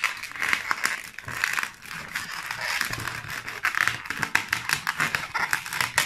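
Inflated latex twisting balloon being worked by hand, one segment pushed in between two others, the taut rubber rubbing against itself and the fingers in a continuous run of small rubs and clicks.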